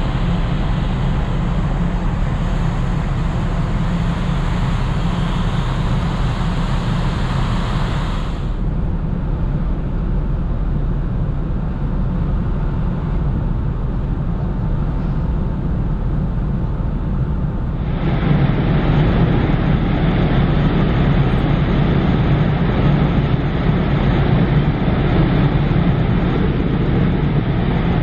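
Steady low rumble and rushing noise of the large car ferry Ishikari, engines and deck ventilation, heard from its open upper deck as it leaves port. The noise changes abruptly twice, about eight and about eighteen seconds in.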